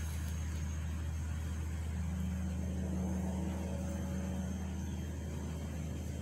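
A steady low mechanical hum, an even drone that does not change.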